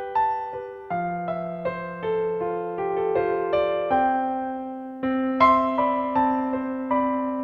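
Background music: a gentle solo electric piano playing a slow melody over sustained bass notes, each note struck and ringing away.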